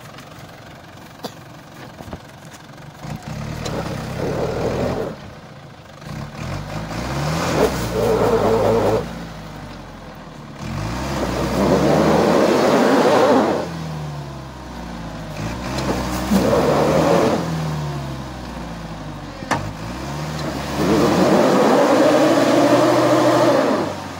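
Off-road 4x4's engine revving hard in about five bursts of a few seconds each, rising and falling in pitch, as the vehicle works through deep snow.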